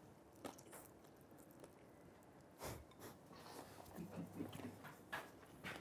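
A person faintly slurping and chewing a mouthful of noodles, with a few soft clicks from the mouth.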